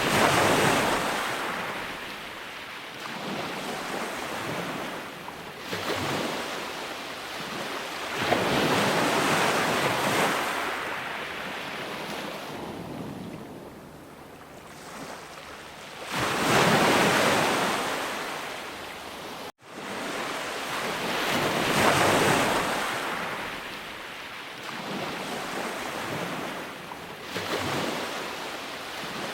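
Sea waves breaking on a shore, the surf rising and falling in long swells every six to eight seconds. About two-thirds of the way through, the sound drops out for a split second and comes back.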